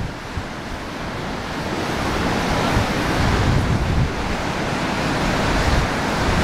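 Baltic Sea surf breaking along the beach, a continuous wash that slowly builds over the first few seconds, with wind buffeting the microphone.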